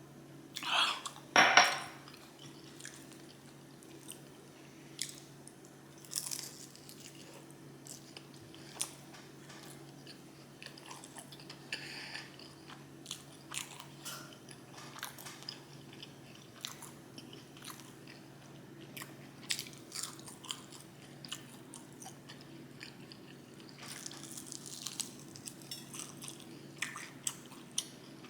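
A person eating close to the microphone: wet chewing with crunching bites. The loudest bite comes just over a second in, followed by intermittent smaller crunches and mouth clicks.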